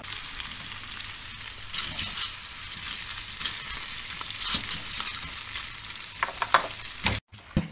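Pasta and canned stewed meat sizzling and crackling as they fry in a frying pan. A few sharp clinks come near the end, and then the sound cuts off abruptly.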